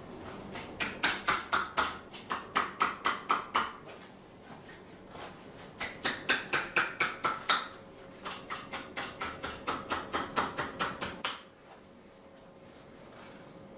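Percussive massage with the hands: quick, even slaps or chops at about five strikes a second, in three runs with short pauses between them.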